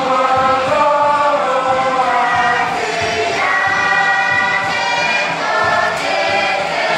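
A large group of voices singing a Tuvaluan fatele together: long held notes sung in several parts at once, shifting in pitch every second or so.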